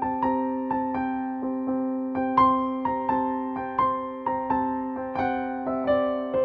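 Background music: a gentle keyboard tune, with notes struck about twice a second over a steady held low note.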